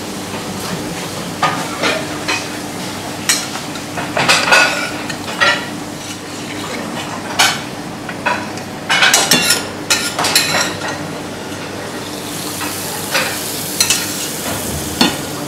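A scallop searing in butter in a nonstick pan, a steady sizzle, with repeated scrapes and clinks of a metal utensil against pan and plate.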